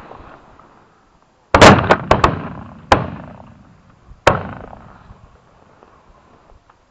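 A string of shotgun shots: a fast, overlapping cluster of four or five about one and a half seconds in, then a single shot about a second later and another near four seconds. Each shot rings out and fades.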